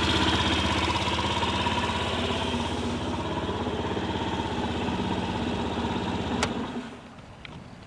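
Honda Gyro Canopy's four-stroke single-cylinder scooter engine running steadily, easing off about three seconds in, then stopping with a click near the end, followed by a couple of light clicks.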